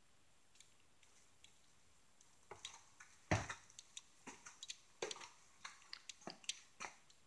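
Irregular footsteps and knocks on bare construction floors, starting about two and a half seconds in, with the loudest thud a little later.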